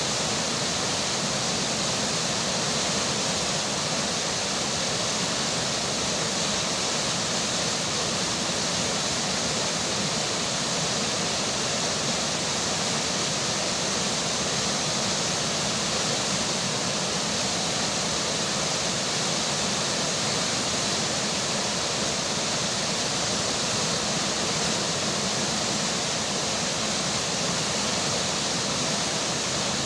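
A river's flowing water and falling rain make a steady, even rush of water sound that does not change.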